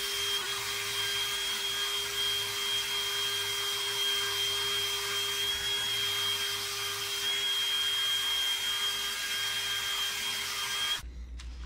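Cordless drill running steadily with a buffing wheel pressed against a plastic gauge-cluster lens, polishing cutting compound into the oxidized plastic: a constant motor whine with a rubbing hiss, cutting off near the end.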